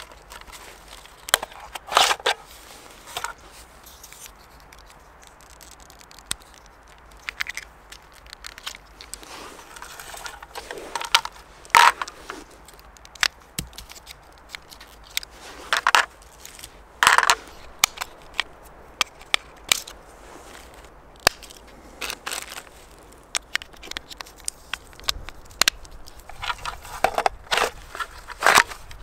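Plastic trail camera being handled: the case and battery tray clicking and AA batteries rattling as the drained batteries are swapped for new ones. Irregular sharp clicks and short scraping rattles.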